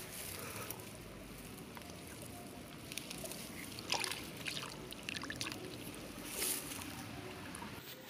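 A hand dipping into shallow pond water: light sloshing and trickling with a few brief splashes, the loudest about four seconds in.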